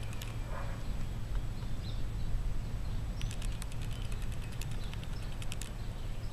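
A cat crunching dry kibble from a plastic bowl: a quick run of crisp crunches, about six a second, starting about three seconds in and lasting a couple of seconds. A steady low rumble of wind on the microphone runs underneath.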